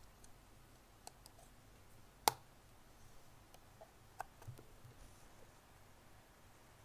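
A few faint metallic clicks and one sharper click about two seconds in: a penknife blade prying at the edge of a hard drive's metal cover.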